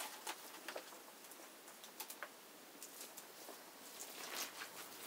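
Dark grapes being crushed by bare hands in a plastic basin: faint, irregular wet crackling and squishing as the berries burst.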